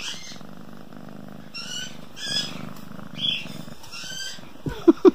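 Domestic kitten purring steadily while its head is scratched, with a few short higher-pitched rustles over the purr. Near the end come two loud, sharp sounds close together.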